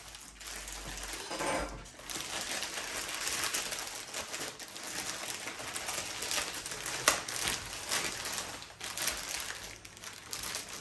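Clear plastic bag crinkling and rustling steadily as it is pulled and worked off a telescope tube, with one sharp click about seven seconds in.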